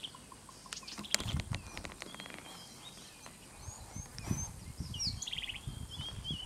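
Wild birds calling in the bush: short high chirps and whistles, with a quick trill about five seconds in. Underneath is a low uneven rumble, and a few sharp clicks sound about a second in.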